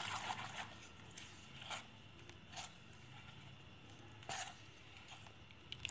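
A metal spoon stirring thin batter in a stainless steel bowl, faint. The steady stirring trails off within the first second, and after that come a few short scrapes of the spoon against the bowl.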